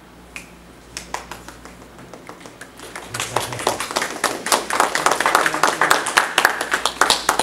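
A small class audience applauding: a few scattered claps at first, building into fuller, steady clapping about three seconds in.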